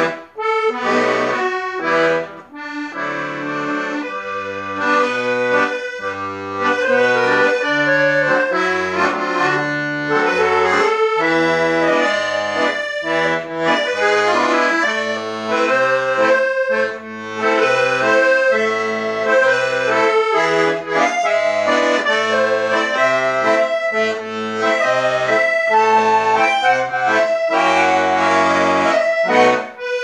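Solo button accordion playing a tango: a melody in the right hand over steady, rhythmic bass notes and chords, with the bellows sustaining the notes.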